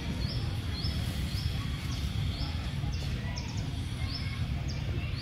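A bird calling with a short, high rising chirp over and over, about one every two-thirds of a second, over a steady low rumble.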